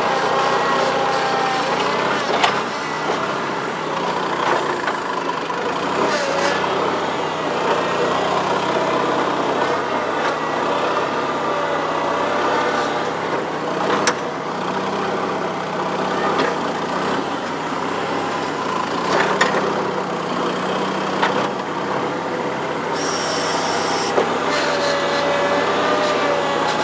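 Skid steer loader's four-cylinder Wisconsin engine running steadily while the machine works, with a wavering whine over the engine and a few sharp clanks.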